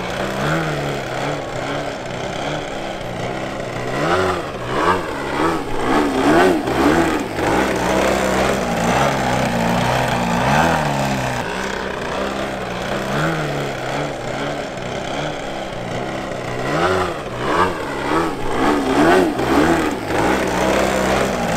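Engines of two large radio-controlled aerobatic model planes flying together, their pitch rising and falling over and over as they throttle up and down and sweep past.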